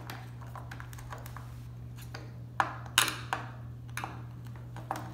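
Hand screwdriver tightening the mounting screws of a plastic RO/DI filter head on a metal bracket: scattered light clicks and taps of tool, screws and plastic, with two sharper clicks a little before the middle.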